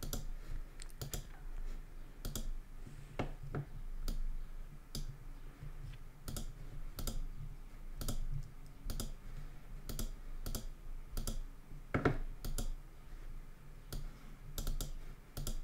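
Clicking of a computer mouse and keyboard: short, sharp clicks at an uneven pace, about one or two a second, with a louder one about twelve seconds in, over a faint steady low hum.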